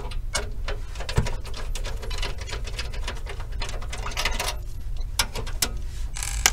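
Irregular light clicks and rattles of a steel desktop PC case and the CPU cooler's mounting bracket being handled and pushed back into place, with a few sharper knocks about a second in and around five seconds in.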